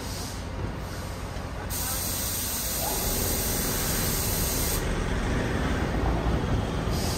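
Truck-mounted crane's engine and hydraulics running steadily, getting louder about three seconds in, with a loud hiss of air from just before two seconds in to about five seconds.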